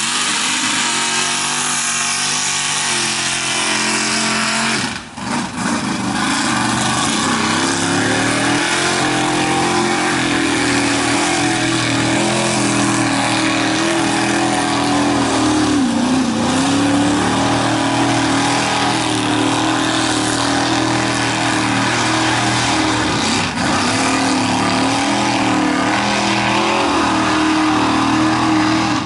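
Fastech big-block V8 of a Mazda mega mud truck running hard under load. The pitch climbs about eight seconds in and is held high, with a couple of brief dips. There is a short drop in the sound near five seconds.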